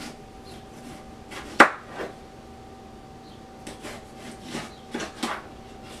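Kitchen knife slicing pickling cucumbers into spears and knocking on a wooden cutting board in separate strokes. The loudest knock comes about a second and a half in, and a quick run of cuts follows in the second half.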